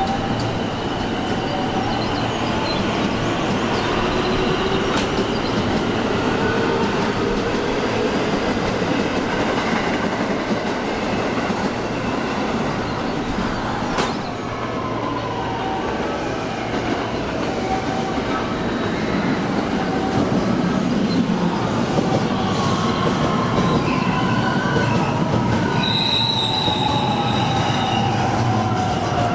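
Electric commuter trains moving through a station platform: a steady rumble of wheels on rail with squealing wheels, and motor whine gliding in pitch. Over the last several seconds the whine falls steadily as a train slows.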